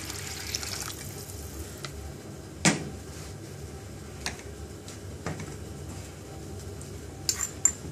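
Water pouring from a jug into a steel pot of red lentils, tailing off about a second in. Then a single sharp knock, a few light taps, and a quick run of metallic clinks near the end.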